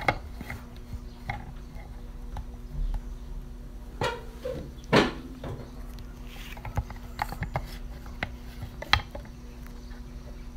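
Scattered clicks and taps of objects being handled on a tabletop, with a few louder knocks, over a faint steady hum.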